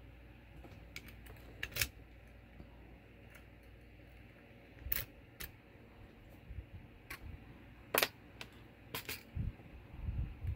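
Scattered light metallic clicks and taps of an Evva EPS lock cylinder and its key being handled, a few seconds apart, over a low steady hum.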